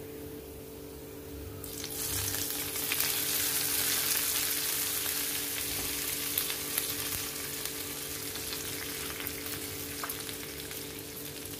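Hot coconut-oil tempering of mustard seeds, shallots, chillies and curry leaves poured into a pan of coconut curry gravy, sizzling loudly from about two seconds in and slowly dying away. A spatula stirs it near the end.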